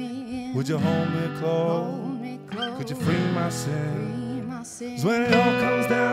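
Live band playing an instrumental passage: strummed acoustic guitar with electric guitar and electric bass.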